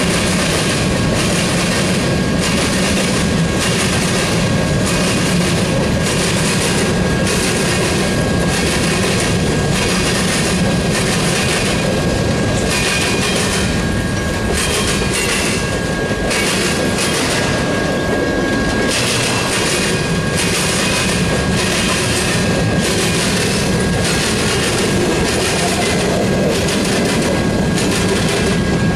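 Freight cars (covered hoppers and boxcars) of a long freight train rolling past, the wheels clicking over rail joints in a steady rhythm about twice a second over a continuous rumble. A faint steady high tone runs under it and fades out about two-thirds of the way through.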